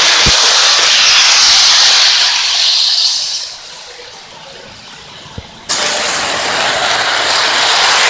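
Electric model train running on track close by: a steady rolling rush of wheels and motor. It fades about three and a half seconds in and comes back suddenly near the end.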